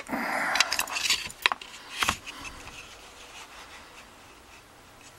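Handling of a picked Yale rim cylinder lock and tools: a short scrape, a few sharp metallic clicks, and a knock about two seconds in, then only faint handling.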